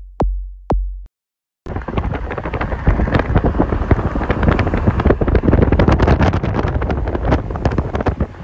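Three heavy booming thumps in the first second, then after a cut, loud wind buffeting the microphone with a low rumble and crackle.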